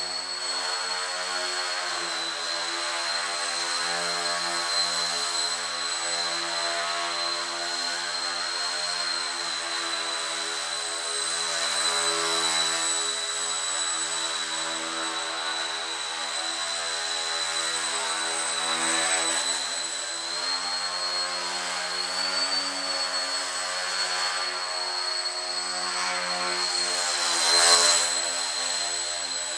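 Electric motor and propeller of a Breeze Pro FP3 indoor foam RC plane whining steadily at a high pitch, the pitch shifting slightly with throttle. It swells briefly louder about two seconds before the end.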